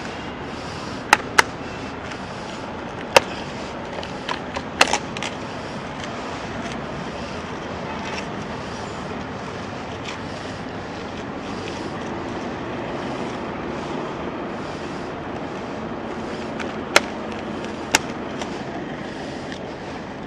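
Plastic-wrapped cargo being pulled and unstrapped from a scooter by hand, giving a few sharp clicks and knocks over steady street noise. The clicks bunch in the first five seconds, and two more come near the end.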